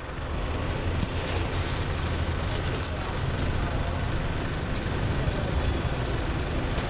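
Steady low rumble of road traffic, with a plastic carrier bag rustling and crinkling as it is packed into an insulated delivery box and its handles are tied.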